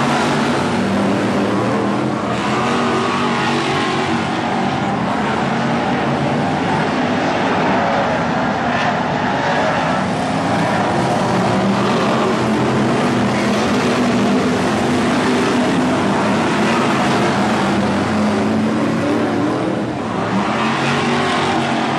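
Several BriSCA F1 stock cars' V8 engines running at race speed together, a continuous loud engine noise that stays steady throughout.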